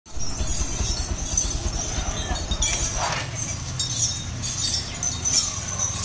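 Road traffic: a steady low engine rumble from an approaching auto-rickshaw and motorbikes, growing a little stronger about halfway through, under a high shimmering hiss.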